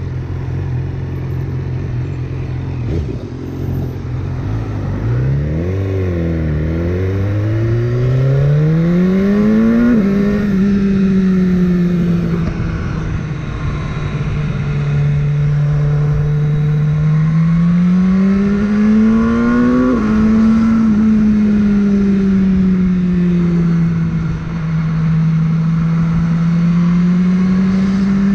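BMW S1000R's inline-four engine running at low revs, then accelerating through the gears: the pitch climbs, drops sharply at upshifts about ten and twenty seconds in, falls away as the throttle eases, and climbs again near the end.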